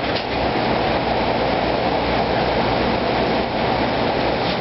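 High-volume drum fan with a fabric dust-filter net over its outlet, running steadily at a raised airflow setting, its air rushing through the net.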